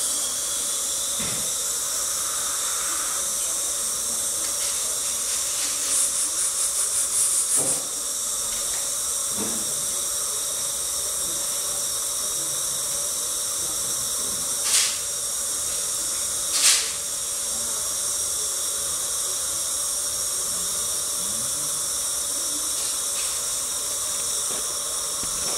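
Dental treatment unit equipment giving a steady hiss with faint high whining tones. About six seconds in there is a quick rattling run of rapid pulses, and about halfway through come two short, louder hissing spurts.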